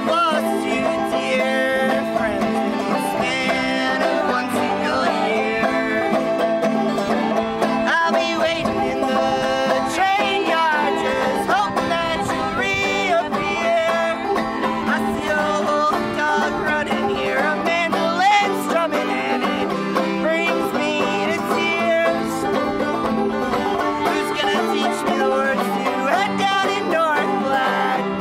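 Acoustic string-band music in a bluegrass style, with picked banjo prominent and guitar underneath.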